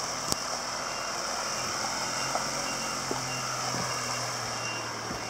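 A vehicle's reversing alarm beeping at a steady even pace, about three beeps every two seconds, over a steady low engine hum.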